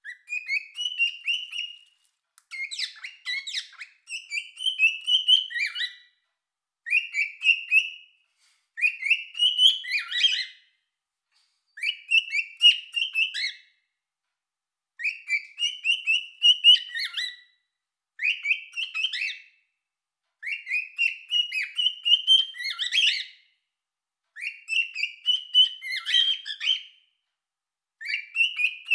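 A cockatiel singing: phrases of chirpy, warbling whistles about one to two seconds long, repeated again and again with short pauses between them.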